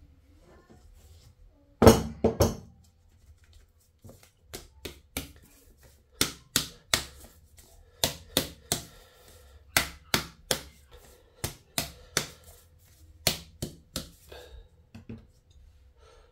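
A round metal cake pan full of batter being lifted and knocked down on a hard countertop again and again, the usual tapping to level the batter and bring out air bubbles. The sharp knocks come about two a second; the loudest are three close together about two seconds in.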